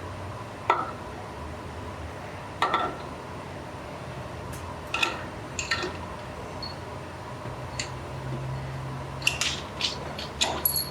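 Metal hand tools or engine parts clinking and knocking against each other and a hard surface, a dozen or so irregular sharp taps that bunch together near the end, over a steady low hum.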